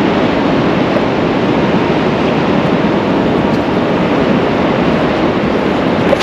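Steady, loud rushing of wind and surf at the shoreline, cutting off suddenly at the very end.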